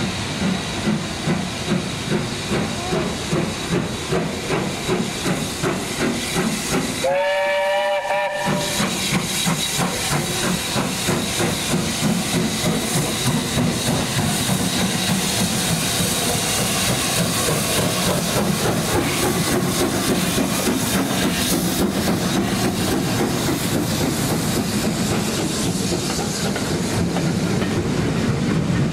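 Steam locomotive 70000 Britannia, a two-cylinder BR Standard Class 7 Pacific, working a train away with steam hissing and a regular exhaust beat of about two a second. A short whistle sounds about seven seconds in. After that the beats come faster and the sound slowly grows louder.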